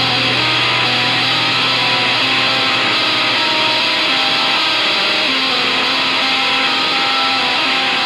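Instrumental stretch of an experimental rock song: guitars with held notes over a dense, noisy wash, at a steady level. A low drone underneath dies away in the first few seconds.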